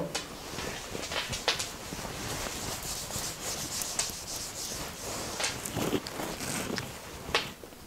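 Whiteboard being wiped with an eraser: soft, irregular rubbing strokes with scattered light taps and scuffs.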